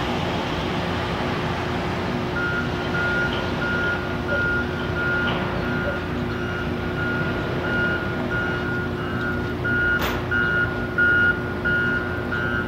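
Construction vehicle's reversing alarm beeping, about two beeps a second, starting a couple of seconds in, over a steady machinery hum. A single sharp clank about ten seconds in.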